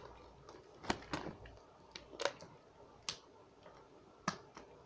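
Sharp, irregular crunches of a crunchy corn snack, Flamin' Hot fries, being chewed, about one a second.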